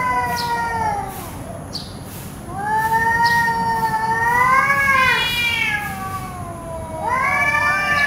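Domestic cats yowling at each other in an aggressive standoff: long, drawn-out threat howls that waver up and down in pitch. The first fades out about a second and a half in, a second runs from about two and a half to six seconds, and a third begins near the end.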